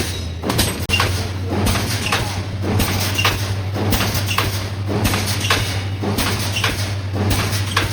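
Automatic 358 fence mesh welding machine running, its strokes clanking evenly about twice a second over a steady electrical hum.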